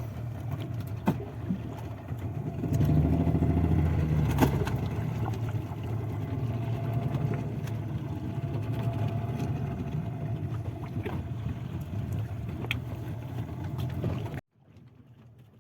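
Boat engine running steadily with a low hum, louder for a couple of seconds near the start, with a few light knocks; it cuts off suddenly near the end.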